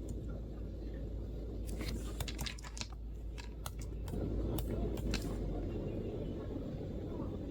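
MacBook keyboard keystrokes: a quick, irregular run of typing clicks starting about two seconds in and stopping after roughly three and a half seconds, over a steady low room rumble.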